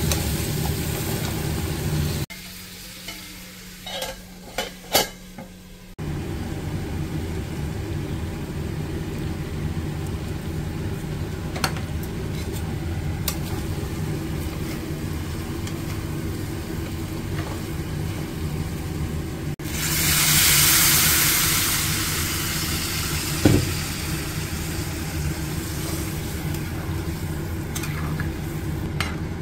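Squash and potato pieces frying and being stirred with a spatula in a steel kadhai, over a steady hum. About two-thirds of the way through, a loud hiss starts suddenly and fades over a few seconds as water goes into the hot pan, followed by a single knock of the spatula on the pan.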